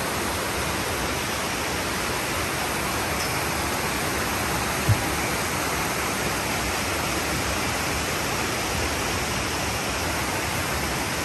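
Steady rush of a small rainforest creek cascading over rocks, with a single low thump near the middle.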